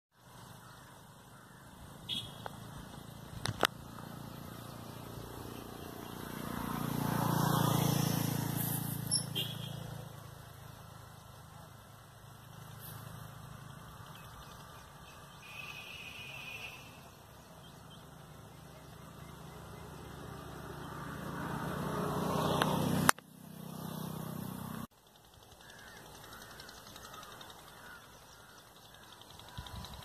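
Outdoor background noise with a low hum that swells and fades twice, peaking about eight seconds in and again just before twenty-three seconds. A few sharp clicks come near the start, and the sound cuts off abruptly a little before twenty-five seconds.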